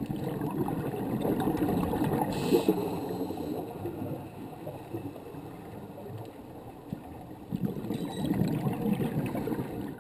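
Underwater water noise heard from inside the water, an uneven rushing and gurgling that swells and fades, with a brief hiss about two and a half seconds in.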